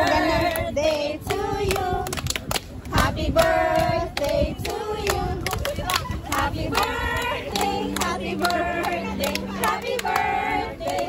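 A group of people singing together while clapping their hands along in rhythm.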